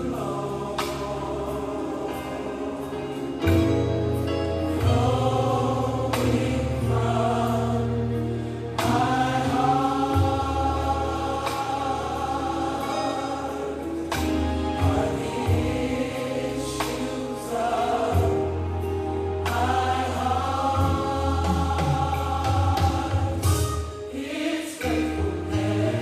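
Gospel music: a choir sings long held notes over a steady bass line and drums.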